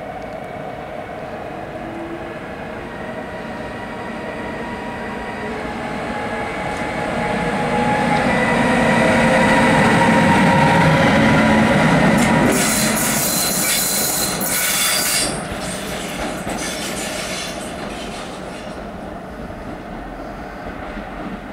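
Siemens ES 64 F4 (Class 189) electric locomotive passing at low speed: a steady electric whine that grows louder as it nears and goes by, with a few seconds of high wheel squeal just after it passes. The sound then drops suddenly to a quieter rolling rumble of wheels on the rails.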